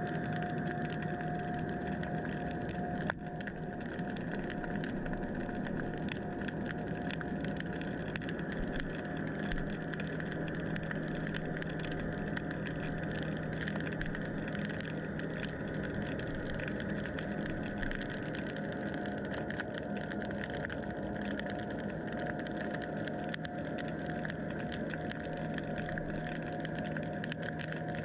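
Underwater recording: a steady mechanical drone with a low hum and a higher, constant tone, like an engine carried through the water, over a continuous fine crackle. A single sharp knock about three seconds in.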